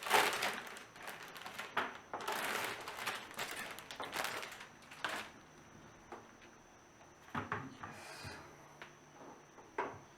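Plastic wrapping rustling and crinkling as it is pulled off a keyboard, in uneven bursts for about the first five seconds, followed by a few light clicks and knocks of the keyboard being handled.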